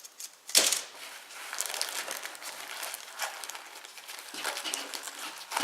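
Packaging crinkling and rustling as small sewing-kit items are handled, with a sharp click about half a second in.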